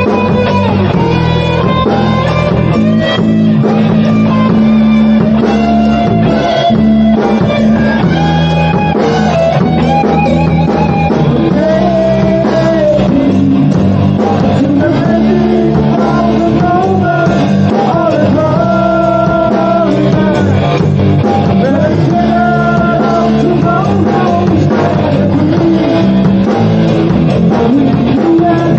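Rock song with electric guitar, drums and a singing voice.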